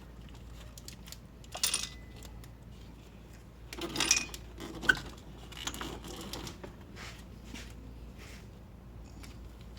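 Metal clinks and scrapes as cylinder-head parts and tools are handled during head removal from a B18B1 engine. They come in a few short clusters, the sharpest about four to five seconds in, with one brief metallic ring about a second and a half in.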